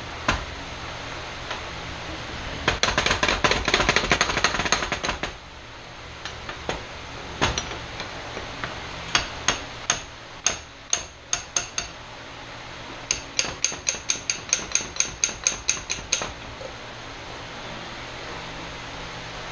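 Hand tools working on the metal parts of a Troy-Bilt pressure washer pump. About 3 seconds in comes a burst of rapid metallic clicking. Scattered single clicks follow, then near the end a run of light, evenly spaced metallic taps, about four a second.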